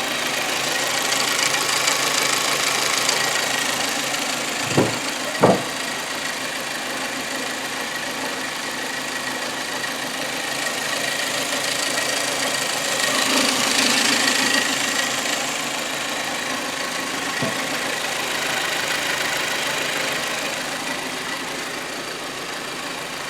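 Hyundai Accent 1.6 engine idling steadily after its hydraulic valve lifters were flushed, running softly, like a whisper, without the lifter knock. Two sharp knocks about half a second apart come about five seconds in, and a fainter one later.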